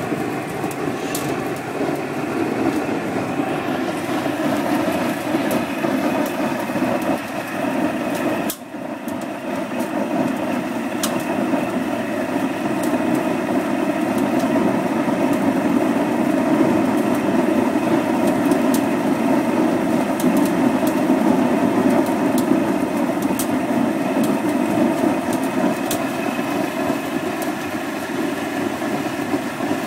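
Small sawdust (biomass) burner firing at full flame, a steady, even roar from the burning jet and its forced air, with faint scattered crackles.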